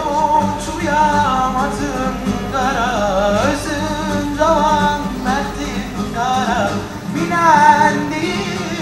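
Singing of a wavering, ornamented melody with acoustic guitar accompaniment, heard through a television's speaker.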